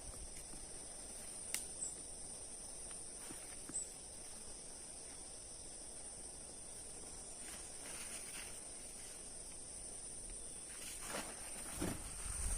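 Steady high-pitched insect chorus, crickets or similar insects calling without a break, with a couple of sharp clicks and some rustling and knocking near the end.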